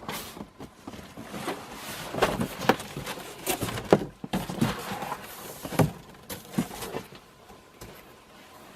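Cardboard box being handled and turned over, with irregular knocks, scrapes and rustles that die down near the end.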